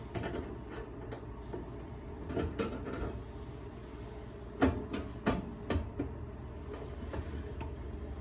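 Scattered knocks and clunks of handling, with a cluster of three sharp knocks about halfway through, over a low steady hum.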